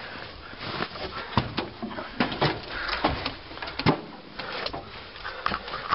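Irregular knocks, clunks and rustling as a person climbs the entry steps of an old school bus and settles into the driver's seat, with the handheld camera being jostled. The engine is not running.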